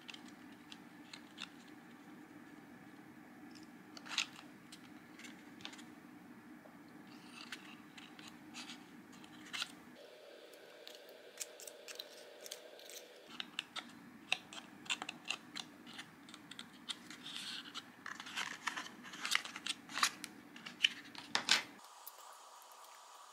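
Light clicks, taps and rustles of stiff paper parts being handled, glued and pressed together, coming thicker toward the end. A low steady hum lies underneath and drops out for a few seconds about ten seconds in and again near the end.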